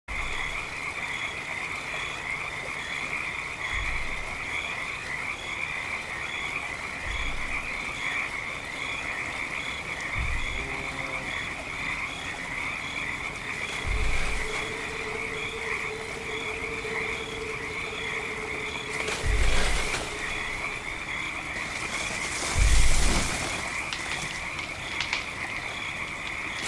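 Designed sound effect of a sauropod's footsteps: six deep, heavy thuds, one every 3 to 4 seconds, growing louder as the animal approaches. The last two are the loudest and carry a crunching rustle. Under them runs a steady night chorus of frogs.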